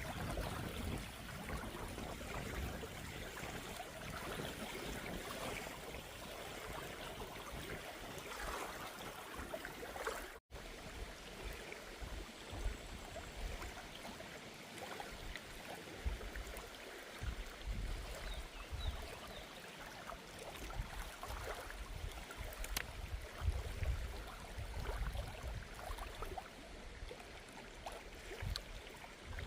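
River water flowing steadily, with irregular low rumbling underneath. The sound cuts out for an instant about ten seconds in.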